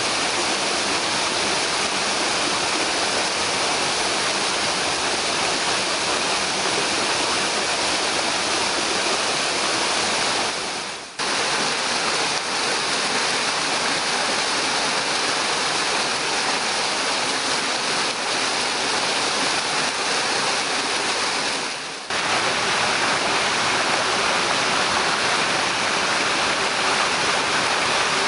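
Cascading mountain waterfall and stream water rushing steadily, with the sound dipping briefly twice.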